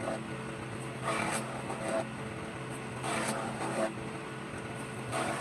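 A power tool motor running steadily, with a louder, rougher stretch about a second long roughly every two seconds as it works the wood.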